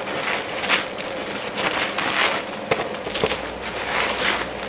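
Plastic bubble wrap crinkling and rustling as it is unwrapped by hand from around a box, with irregular sharp crackles.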